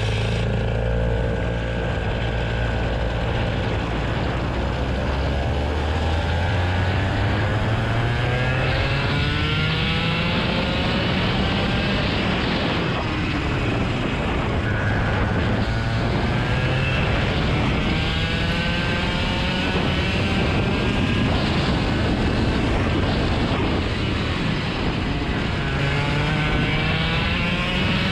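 A motor vehicle's engine running under load. Its pitch climbs steadily for the first several seconds, then drops and climbs again a few times as it speeds up and eases off.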